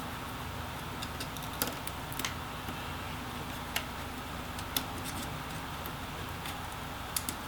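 A few faint, scattered clicks and light taps from hands working on a laptop's internals, freeing the display's video cable, over a steady low background hum.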